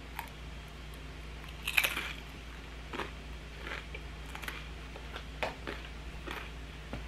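Close-up biting and chewing of crunchy sesame-seed rice-cracker nachos: one loud crunch about two seconds in, then softer crunches about once a second as she chews.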